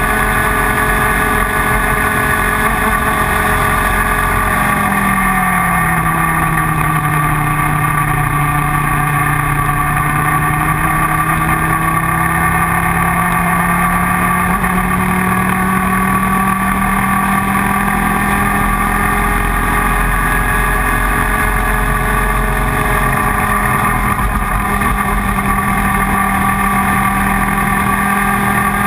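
IAME Leopard 125cc two-stroke kart engine running at high revs. Its pitch drops about five seconds in, then climbs slowly and steadily back up over the next fifteen seconds.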